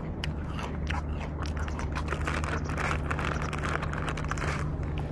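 Footsteps and the crunching, rustling of a handheld camera being carried while walking on a paved walkway, with many short irregular clicks, over a steady low hum.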